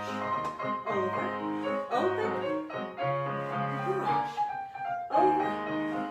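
Piano music playing as ballet class accompaniment for grand battements at the barre, with steady chords and a new note attack about every half second to second.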